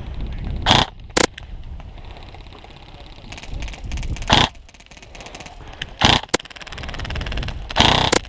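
Airsoft electric gun (AEG) firing several short bursts, each a brief buzzing rattle, spread across a few seconds, over a low rumble of wind and movement on the microphone.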